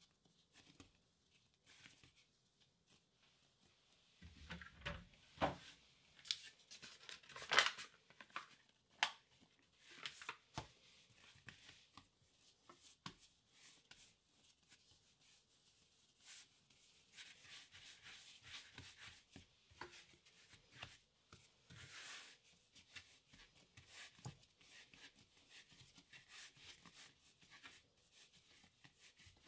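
Hands kneading and shaping bread dough on a floured wooden chopping board: soft pats, knocks and rubbing. The knocks are most frequent a few seconds in, and give way to quieter rubbing later.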